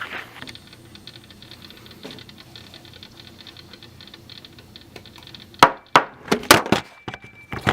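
Faint ticking and rustling, then a quick run of about six loud, sharp clicks and knocks in the last two seconds, like hard objects being handled and set down.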